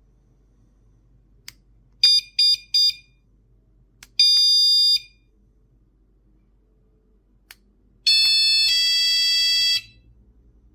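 Lancoon wireless door alarm beeping: after a sharp click, three quick beeps; after a second click, one long beep; after a third click, a longer beep that steps to a different tone about halfway through.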